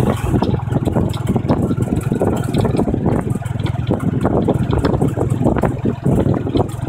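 A Cambodian tuk-tuk rolling along a road: the motorbike engine that pulls the carriage runs steadily under way, mixed with wind and road noise and many small knocks.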